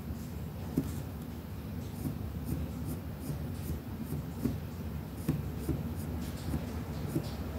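Colored pencil scratching on paper in many short, quick shading strokes, over a low steady hum.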